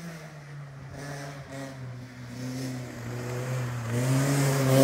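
A race car's engine approaching under hard acceleration, revving with its note wavering up and down. It grows steadily louder as the car nears.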